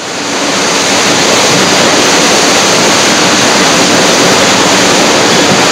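Hurricane Hugo's wind blowing steadily, a dense rushing noise with wind buffeting the camcorder microphone; it fades in over the first second.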